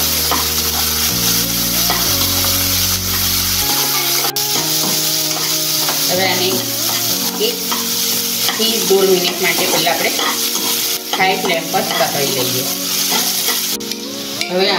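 Chopped onion, capsicum, garlic and ginger sizzling in hot oil in a metal kadai while being stirred and scraped round the pan with a perforated metal spatula.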